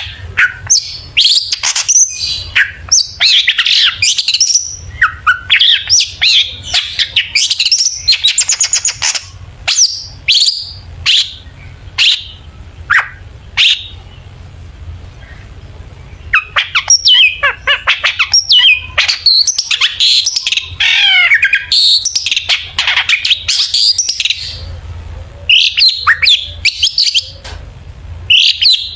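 Long-tailed shrike (cendet) singing a fast, varied song of rapid chirps, trills and scratchy notes, full of mimicked calls, with a lull of about two seconds midway. A faint low hum lies underneath.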